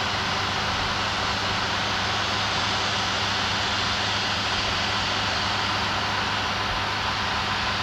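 Steady, even rushing noise with a low hum underneath, unchanging throughout: the outdoor background picked up by a VHS camcorder's microphone.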